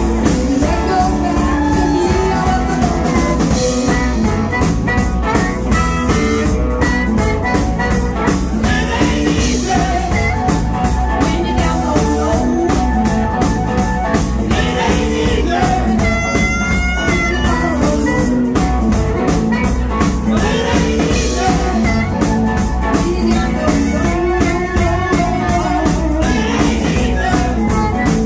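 Live blues band playing: a woman singing over electric guitar, electric bass and a drum kit.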